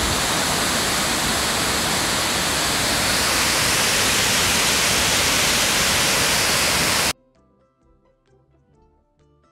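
Rain-swollen, muddy river rushing over rocks in a loud, steady roar of water that cuts off suddenly about seven seconds in. Faint background music follows.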